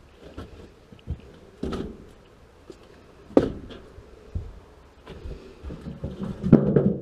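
Split firewood knocking and clunking as pieces are lifted out of a wheelbarrow and stacked on a woodpile. There are a few separate knocks, the loudest about three and a half seconds in, and a quick run of clunks near the end.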